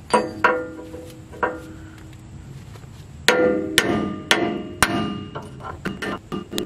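Hammer blows on a drift held against a Dana 60 steering knuckle, each strike ringing like metal. The drift is driving out the worn lower kingpin bearing race. There are three blows, a pause of about two seconds, then a quicker run of strikes.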